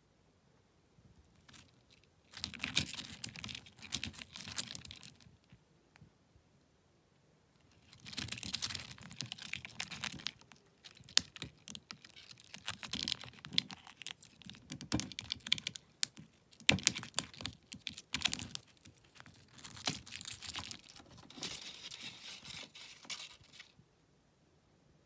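A red-backed two-forked stag beetle and a Palawan giant stag beetle grappling on cork bark: dry scratching of claws on the bark and clicks of their hard shells and mandibles knocking, in bursts, with a few sharper clicks among them.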